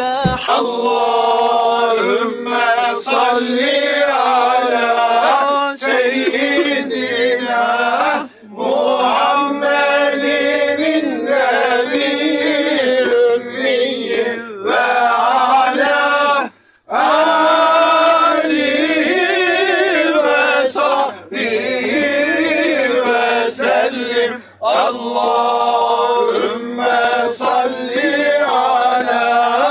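A group of men chanting Islamic devotional verses together in long sung phrases, with short breaths between them and one clear pause about halfway through.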